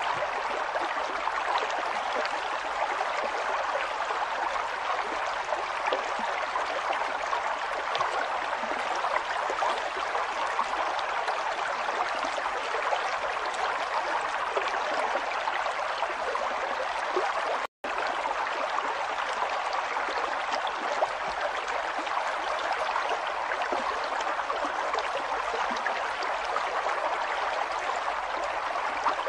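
River water flowing over stones, a steady rushing and babbling. The sound cuts out for a split second about two-thirds of the way through, then carries on unchanged.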